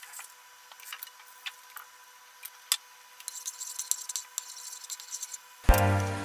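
Tomato puree sizzling and crackling in hot olive oil in a frying pan, with scattered clicks of a wooden spatula against the pan as it is stirred. Near the end, loud background music cuts in suddenly.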